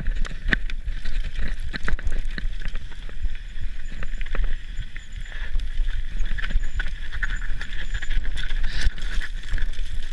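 Mountain bike tyres crunching and skidding over loose slate scree on a steep descent, with frequent sharp clicks and knocks from stones and the rattling bike, over a steady low rumble of wind on the microphone.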